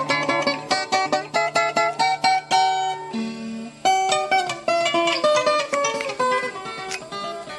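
Instrumental moda de viola: a Brazilian viola caipira, a ten-string folk guitar, playing quick plucked runs of notes, with a short let-up a little before the middle.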